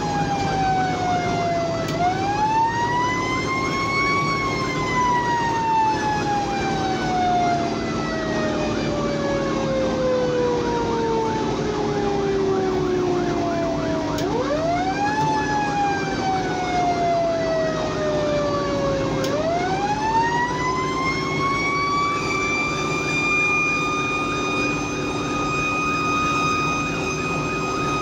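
A fire engine's siren heard from inside the cab: it rises quickly, falls slowly in a long glide, rises and falls again about halfway through, then rises and holds a steady high pitch for the last few seconds. The truck's engine and road noise run steadily underneath.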